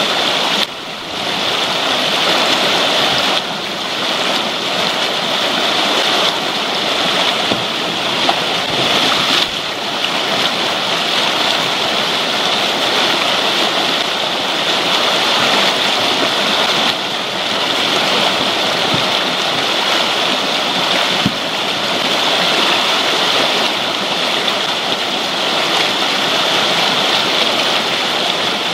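Whitewater river rapids rushing, a loud, steady, continuous roar of churning water heard close up at water level.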